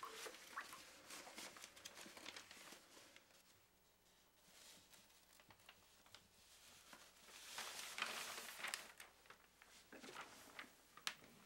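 Faint rustling of newspaper pages being handled, loudest in a burst about eight seconds in, with soft scattered crinkles and clicks around it.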